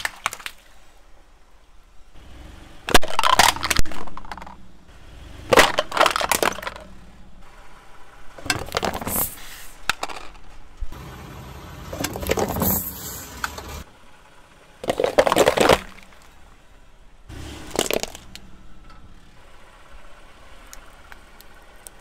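A car tyre rolling over and crushing a series of objects on asphalt, such as water balloons, a metal nut can and plastic toys: about six loud cracks and crunches, a few seconds apart.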